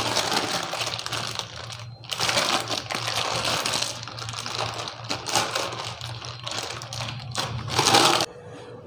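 Thin plastic sheet crinkling and crackling in quick irregular clicks as hands knead and press soft cashew dough inside it; the crackling stops abruptly near the end.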